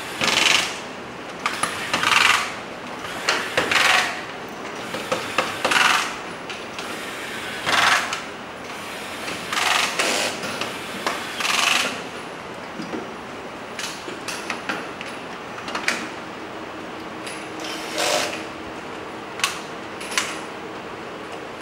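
Corded electric screwdriver driving small screws into a plastic camera housing in short runs, about one every two seconds, each ending as the clutch slips. In the second half, shorter clicks and knocks of plastic parts being handled.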